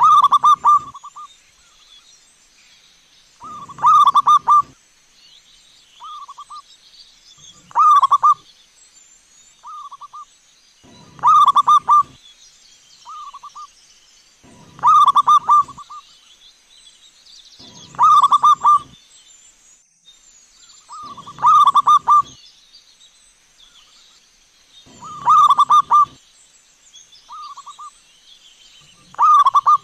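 Zebra dove (perkutut) cooing: nine rolling phrases, each about a second long and about three and a half seconds apart, with a short single coo between most of them.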